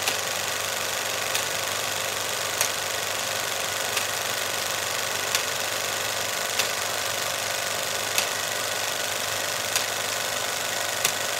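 16 mm film projector running with a reel threaded: a steady mechanical whirr and hiss, with a sharp click roughly every second and a half.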